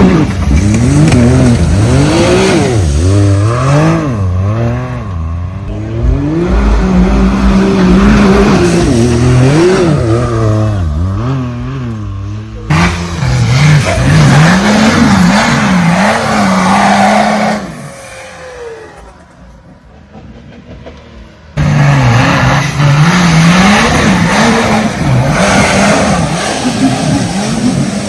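Off-road vehicle engines revving hard and unevenly, pitch swinging up and down again and again as they climb. The sound cuts abruptly twice, about 13 s and 22 s in, with a much quieter stretch just before the second cut.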